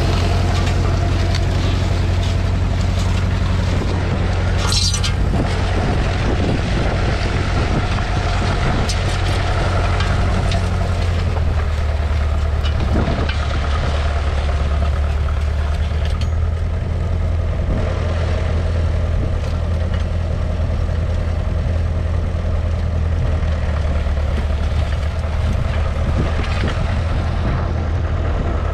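2.5-litre four-cylinder diesel engine of a 1969 McCormick 434 tractor running steadily, its note dropping slightly about eleven seconds in. A brief sharp knock about five seconds in.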